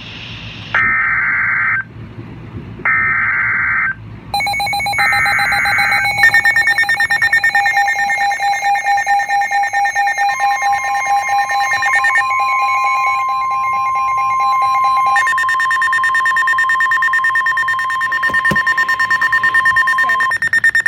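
Emergency Alert System tones: three shrill digital data bursts of about a second each, the coded header that opens a new alert. Then a long steady electronic alert tone of several overlapping pitches, with another steady tone joining about ten seconds in, the attention signal that comes before a spoken weather warning.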